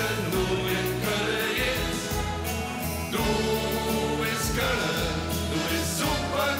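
A man singing a carnival song into a microphone over band accompaniment with a steady beat, with more voices joining in on the melody.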